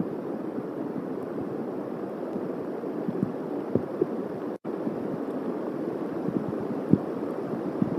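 Steady rain pattering on the nest and the camera's microphone, with scattered heavier drops tapping; the sound cuts out for a split second a little past halfway.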